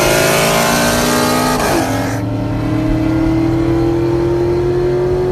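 V8 car engine at full throttle, its pitch climbing steadily. About two seconds in it upshifts: the pitch drops suddenly, then climbs again through the next gear.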